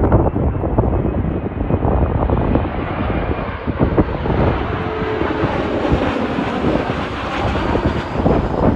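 Bombardier CRJ-700 regional jet's twin turbofan engines rumbling and hissing as it flies low on final approach, the hiss reaching higher as the jet comes closer.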